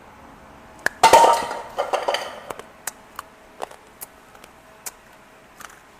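Candy being bitten and crunched close to the microphone: a sharp crack about a second in, a loud crunch that fades over the next second, then scattered small clicks of chewing.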